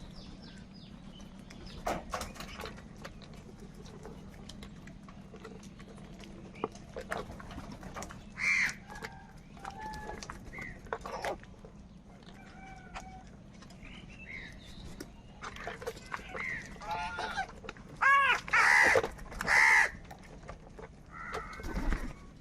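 Crows cawing: scattered short calls through the first part, then three loud, harsh caws in quick succession about three-quarters of the way in.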